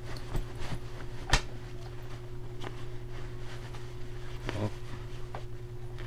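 Cloth rustling and being handled as pants are pushed into a jacket sleeve, with a sharp tap a little over a second in and a couple of soft knocks near the end, over a steady low hum.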